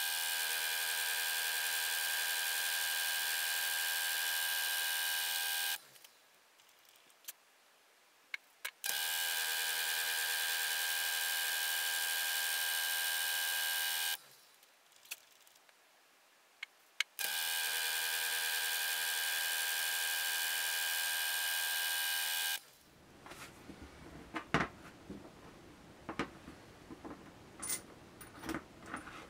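Milling machine running in three steady spells of about five seconds each, starting and stopping abruptly as it works an aluminium revolver-style cylinder, with a few clicks in the pauses. Near the end, scattered light clicks and taps of small metal parts being handled.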